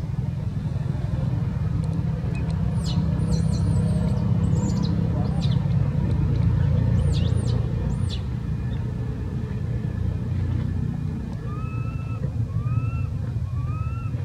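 A steady low rumble throughout. Over it, short high squeaky calls from a baby long-tailed macaque come in the middle, and three short rising calls near the end.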